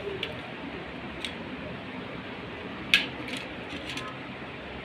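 A few sharp clicks from small tools and parts being handled during work on a laptop cooling fan, the loudest about three seconds in, over a steady background hiss.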